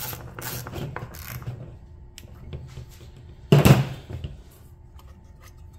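Rebuilt recoil starter of a 5.5 hp Johnson outboard turned by hand on the bench: light clicking and scraping of the pulley, then one loud clack about three and a half seconds in, as the recoil spring pulls the pulley back, the sign that the starter is retracting as it should.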